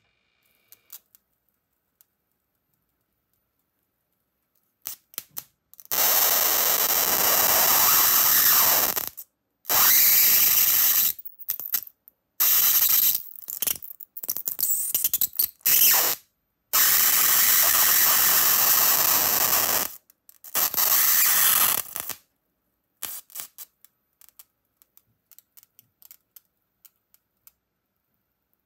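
High-voltage arc from a flyback transformer crackling and hissing between two wire ends, starting about six seconds in. It comes in several bursts of one to four seconds, each breaking off abruptly, and stops for good a little past the middle.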